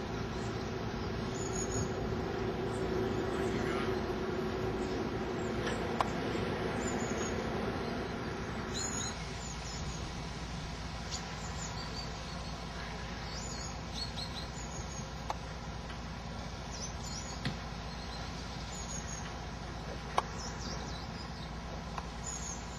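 Outdoor background of steady distant traffic noise, a little louder for the first nine seconds or so, with scattered short high chirps and a few sharp clicks.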